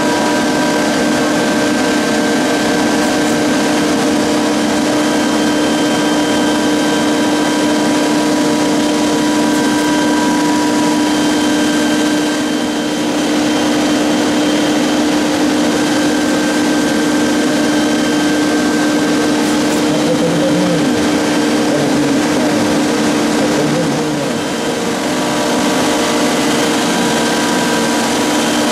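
Four-seat chairlift's machinery running: a steady hum with several constant whining tones.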